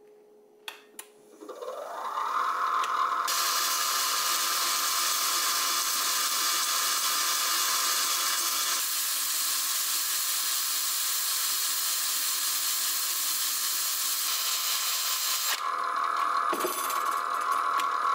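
Wood lathe spinning up with a rising motor whine, then running steadily while a drill-driven sanding disc sands the underside of a wooden goblet's base with a loud, even hiss for about twelve seconds. The hiss stops near the end, leaving the lathe's whine, which begins to fall at the very end.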